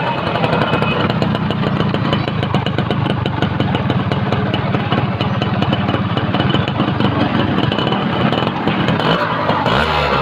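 Yamaha YB100 two-stroke single-cylinder engine running steadily at a constant speed through an old-model silencer.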